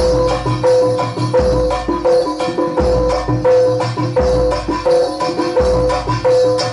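Jaranan dor ensemble music: pitched metal gamelan-type percussion ringing a repeating pattern, over a deep low beat about every second and a half, with rattling and clacking hand percussion.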